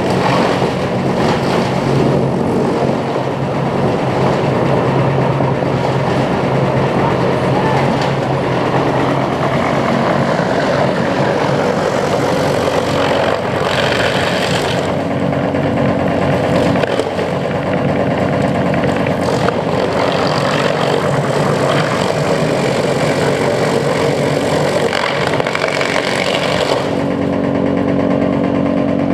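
Sawmill machinery running: a loud, steady mechanical din with a constant low hum underneath.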